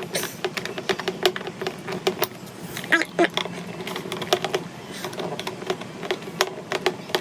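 Rapid, irregular clicking as screws are driven back into the alarm clock's plastic back cover with a screwdriver, several clicks a second, over a faint steady hum.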